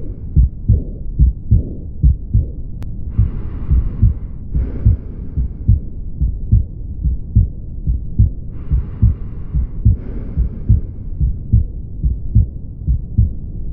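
Heart sounds heard through a stethoscope: a steady run of low beats carrying the murmur of aortic regurgitation, typically an early diastolic, blowing, decrescendo murmur. Twice a soft hiss about a second long, followed by a shorter one, sounds over the beats.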